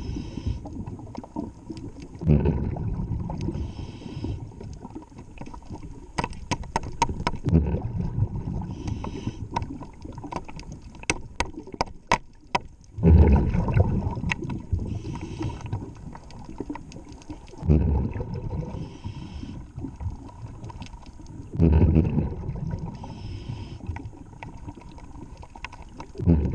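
Scuba diver breathing through a regulator underwater: a rush of exhaled bubbles about every four to five seconds. In the middle come two runs of sharp clicks.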